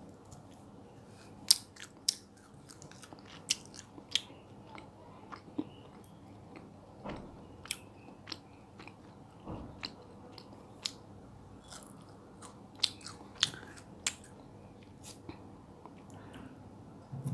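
Close-up chewing and biting of soft, sticky mango jelly: wet mouth clicks and smacks at irregular intervals.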